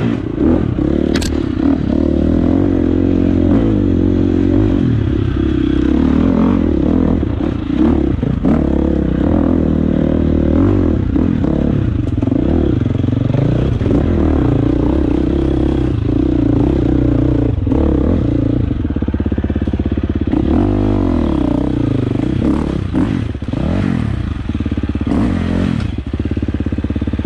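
Dirt bike engine revving up and down continuously as it is ridden along a rough singletrack trail, with clattering and knocks from the bike over roots and ruts.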